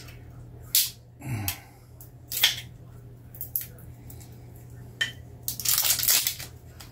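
Kitchen handling noises: several sharp clicks and knocks, then about a second of rustling and clatter near the end, over a steady low hum.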